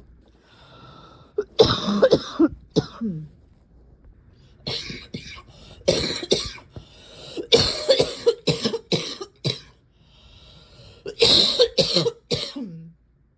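A person's crackly, barking cough, coming in about four fits of several quick coughs each, with breaths drawn in between. The cough is only slightly wet, about as wet as this cough gets.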